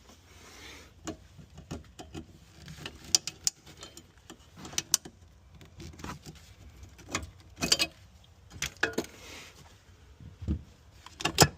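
Irregular clicks, clinks and knocks of a wrench and metal fittings as the battery hold-down is loosened and lifted out. The loudest clinks come near the end.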